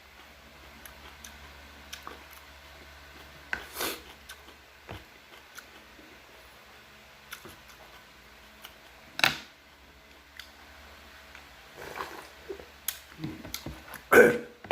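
Eating noodles and kimchi up close: scattered small mouth clicks and smacks, with three louder short noisy bursts about four, nine and fourteen seconds in.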